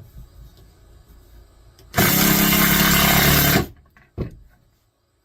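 Cordless screw gun (drill/driver) running for about a second and a half, driving a screw into wood, then stopping; a single sharp knock follows shortly after.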